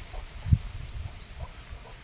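Short, high, rising chirps repeated several times, like small birds calling, over irregular low thumps and rumble; one louder thump comes about half a second in.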